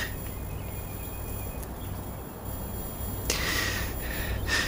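A man breathing in heavily as he becomes tearful, a long breathy intake about three seconds in and another near the end, over a low steady room hum.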